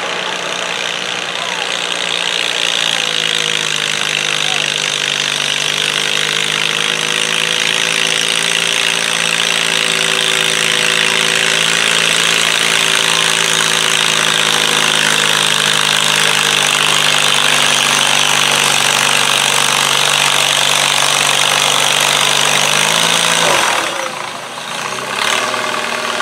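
Stock garden tractor's engine running hard under load at a steady pitch as it pulls a weight-transfer sled, then dropping away suddenly near the end as the pull stops.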